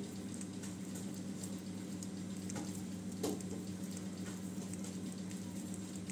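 Soft crackling and rustling of charred skin being rubbed and flaked off fire-roasted sponge gourds by hand over paper, with a few small ticks, over a steady low hum.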